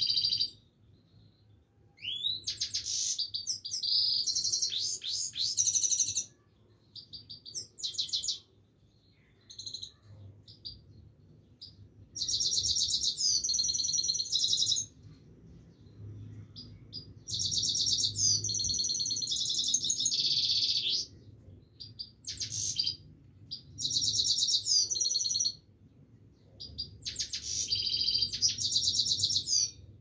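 Himalayan goldfinch singing: fast, high twittering song phrases of about two to four seconds each, repeated with short pauses between.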